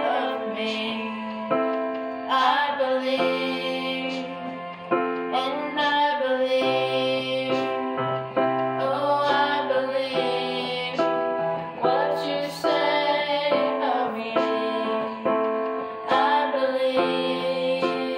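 A woman singing while accompanying herself on a digital piano, playing slow held chords that change every second or so under a wavering sung melody line.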